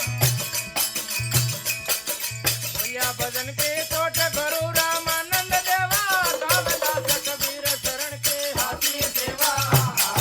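Rajasthani desi bhajan music: a fast, steady percussion rhythm, with a wavering melody line that comes in about a third of the way through and fades near the end.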